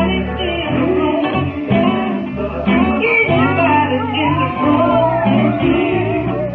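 Live gospel band playing: held low bass notes that change every second or so under guitar, and a singer's voice gliding up and down about halfway through.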